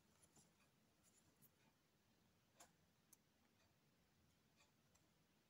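Near silence, with a few faint ticks and soft scratches of a needle and embroidery thread being worked through fabric while stitching French knots.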